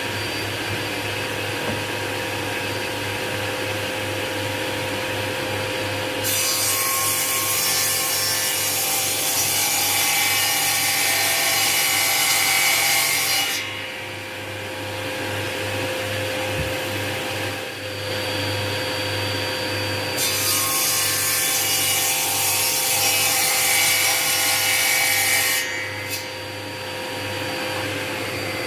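Power saw cutting chipboard in two long passes of about seven and five seconds, the cut louder and hissier over a steady motor hum.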